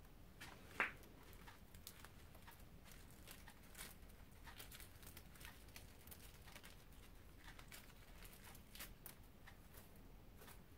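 Faint crinkling and scattered ticks of paper insulation and fine copper wire scraps from a charger transformer being picked through by gloved hands on a stainless steel bench, with one sharper tick about a second in.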